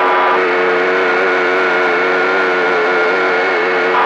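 A steady pitched tone with several overtones, heard over CB radio reception with a hiss of static. It starts about half a second in and holds unchanged for about three and a half seconds.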